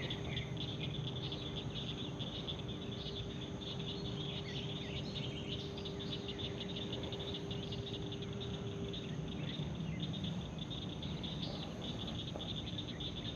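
Dense chorus of crickets chirping, many rapid high chirps overlapping, over a low steady hum. A faint steady tone stops about nine seconds in.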